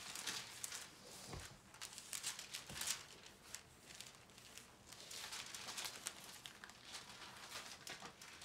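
Bible pages being turned, a run of soft, irregular paper rustles and crinkles.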